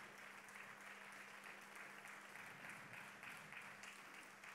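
Faint applause from an audience, many hands clapping steadily, over a steady low hum.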